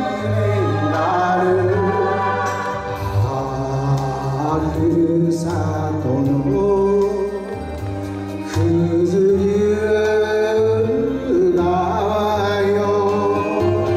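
A man singing a Japanese enka song into a microphone over a karaoke backing track, holding long notes with a wavering vibrato.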